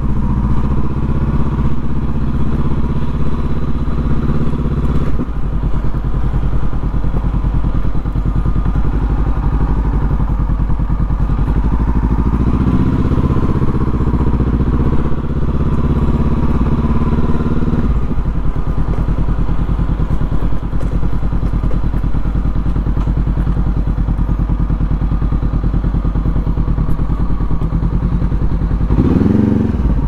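Honda CB500X parallel-twin engine running through a Mivv Suono exhaust at low riding speed, its note shifting with the throttle a few times, with a quick rev rising and falling near the end.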